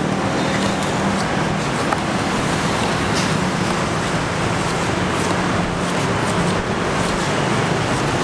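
Steady road traffic noise, with faint cuts of a machete paring the husk of a green coconut.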